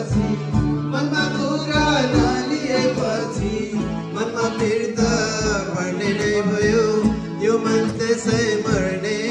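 Men singing a song together into a microphone, with a guitar being played and a steady low beat.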